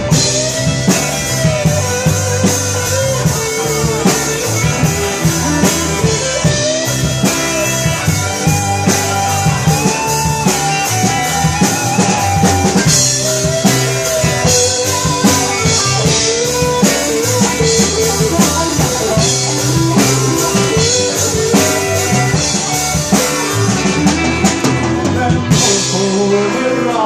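A band playing live in an instrumental break: drum kit keeping a steady beat under guitar, with a melody line winding over it.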